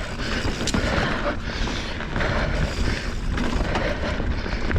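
Mountain bike descending a dirt trail: tyres rolling over dirt and the bike rattling, with many short knocks over bumps and a steady low rumble throughout.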